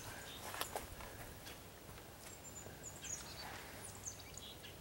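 Faint outdoor ambience of birds chirping: scattered short, high, thin notes and quick little whistled glides, with a few soft clicks and taps.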